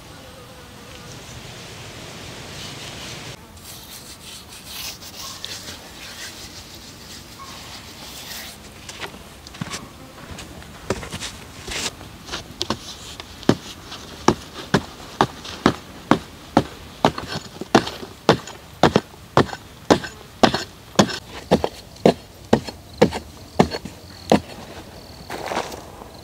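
A long pole struck repeatedly into the ground, a run of regular thuds about one and a half a second that stops near the end. At first, hands rub wet clay smooth, and insects buzz in the background.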